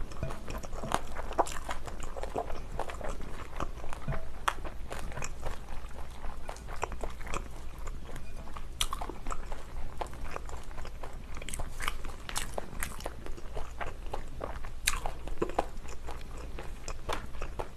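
A person chewing and crunching mouthfuls of napa cabbage kimchi, with many short, irregular crunches.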